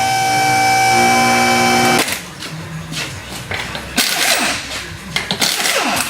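Background music ends abruptly about two seconds in. It gives way to auto-shop work noise: irregular clicks and knocks of tools with short whirring, mechanical sounds.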